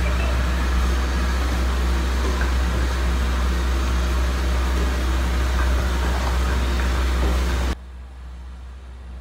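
Steady loud whooshing noise with a deep hum, which drops suddenly to a much quieter steady hiss near the end.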